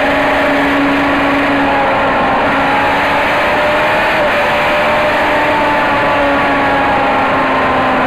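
Racing car's engine held at high revs, heard from inside the cockpit over road and wind noise. Its pitch sags slowly and picks up again about halfway through.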